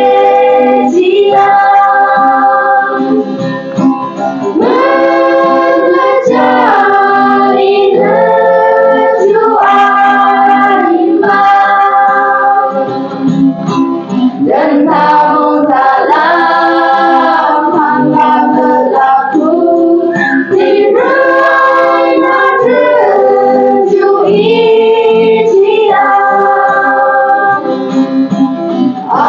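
A small mixed choir singing a hymn in unison, mostly young women's voices, in sustained phrases with short breaks between lines, with a guitar accompanying.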